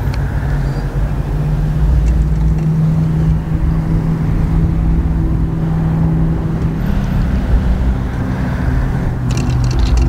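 A car engine idling steadily, a low even hum that shifts pitch slightly a couple of times.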